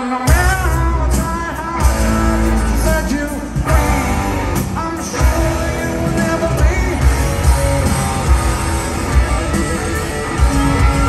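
Live rock band heard from within the audience: drums, bass and electric guitars come in loudly all at once right at the start after a quieter passage, and a male singer's voice carries over them.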